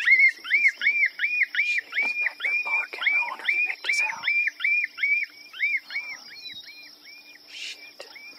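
A predator call playing a distressed-animal squeal: a fast, even series of short rising-and-falling cries, about four a second, all at the same pitch. The cries grow weaker from about five seconds in.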